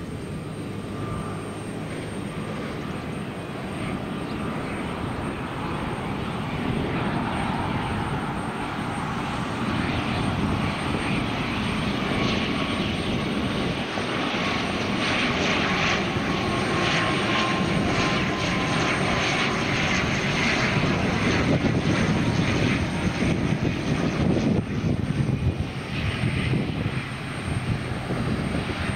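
A fixed-wing aircraft's engines passing, growing steadily louder and loudest about two-thirds of the way through, with a faint tone sliding slightly lower as it goes by.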